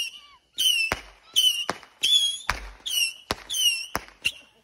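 A lit firework going off in a quick regular series of shots, each a short high whistle with a sharp bang, about one and a half a second.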